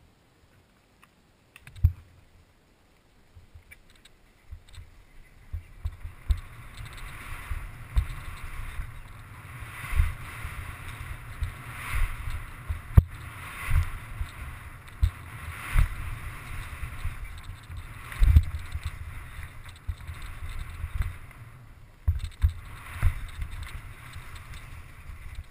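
Downhill mountain bike ride heard from a helmet-mounted camera: after a few fairly quiet seconds, a steady rush of wind and tyres on dirt builds up about five seconds in, broken by frequent irregular thumps and knocks as the bike and camera jolt over bumps on the trail.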